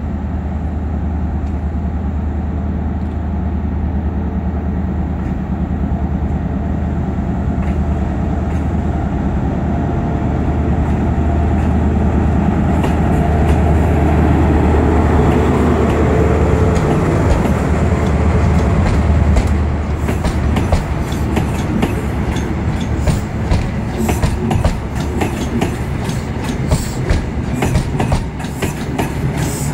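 Diesel HST (InterCity 125) passing close by: the Class 43 power car's engine hum builds and is loudest about halfway through. After that the Mark 3 coaches follow with a run of sharp wheel clicks over the rail joints.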